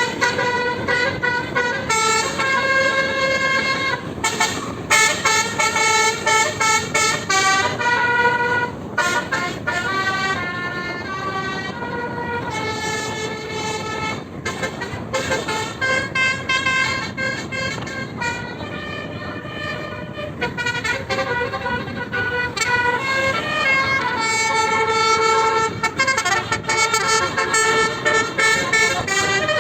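Basuri telolet horn on a bus playing a melody: a long run of loud, stepped horn notes, each changing pitch every half second or so, over a steady rumble.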